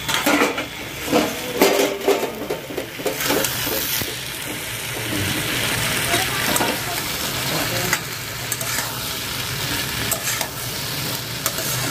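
Potato and brinjal frying in a kadai with a steady sizzle, a spatula stirring and scraping them against the pan. In the first few seconds there are clinks and knocks of metal, from the steel plate lid being lifted off and the pan being handled.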